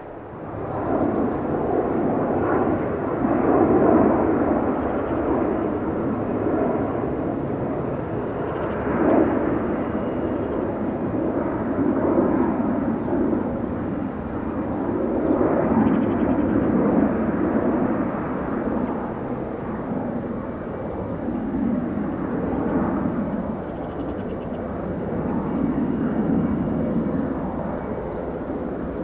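Jet airliner engines: a loud rumble that comes in abruptly about half a second in, then swells and eases in waves.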